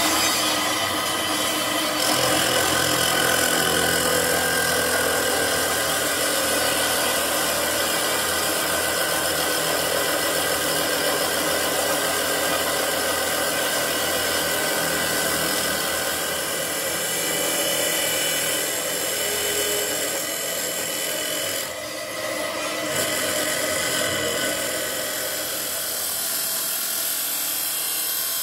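Electric abrasive cut-off saw grinding through a metal pipe: a loud, continuous, harsh screech of the spinning abrasive wheel on metal over the motor's hum. It eases briefly about three-quarters of the way through.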